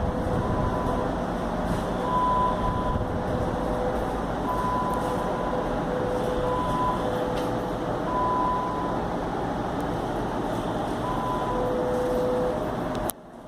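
Lung-auscultation simulator giving a steady rushing noise, with short steady tones near two pitches (one higher, one lower) coming and going about every second.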